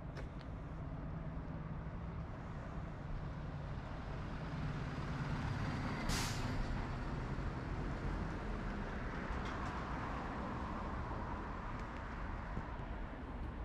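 Heavy traffic on a multi-lane city boulevard, a steady rumble of engines and tyres. About six seconds in, a short, loud air-brake hiss comes from a heavy vehicle.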